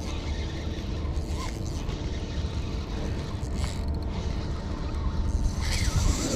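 Spinning reel being cranked by hand, its gears turning steadily as line is wound in, over a steady low rumble.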